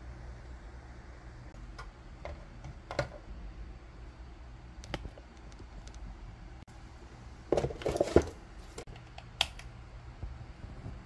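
Scattered light clicks and knocks of a plastic LED ceiling-lamp fixture and its ribbed diffuser cover being handled on a workbench, with a short cluster of clattering about eight seconds in, over a low steady hum.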